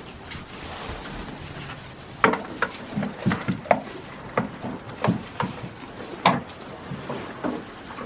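Goats moving about on straw bedding in a wooden shed: irregular knocks and rustling.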